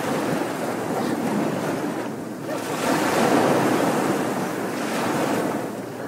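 Ocean surf washing up a sandy beach: a steady rush of breaking water that swells to its loudest about three seconds in, then eases off.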